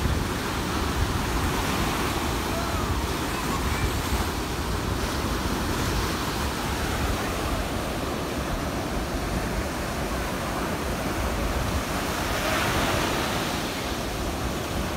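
Ocean surf breaking and washing up the beach, a steady rush of waves with a slightly louder wash about twelve seconds in, with wind buffeting the microphone.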